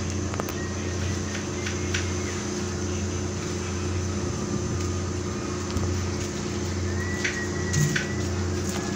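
Ship's machinery running with a steady low drone, with a few faint clicks and a short thin tone near the end.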